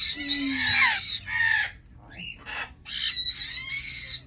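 Young African grey parrot chick giving raspy, squawking calls in several bursts: a long one over the first second and a half, a short one a little after two seconds, and another long one about three seconds in.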